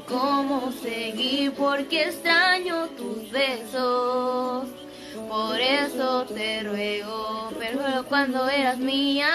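A woman singing solo, with no backing heard, a wide vibrato on the held notes.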